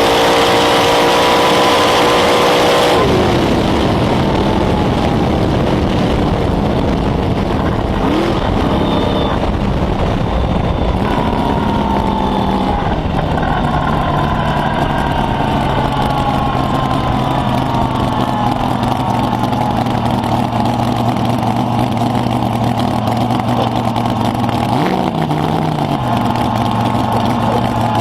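A drag racing car's engine held at high revs, its pitch slowly rising, cuts back sharply about three seconds in and then runs at a low, steady idle with a few small blips.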